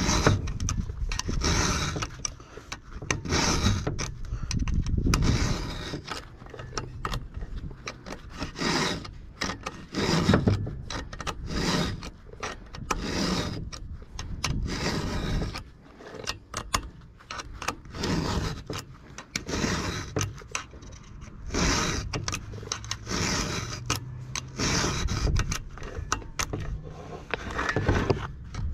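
A 5.5 mm round chainsaw file rasping across the cutters of a .404 semi-chisel chain in a Husqvarna file guide, in repeated strokes about one a second with short pauses between them.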